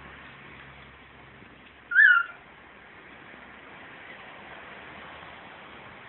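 Male cockatiel giving one short chirp that rises then falls in pitch, about two seconds in, over a steady background hiss.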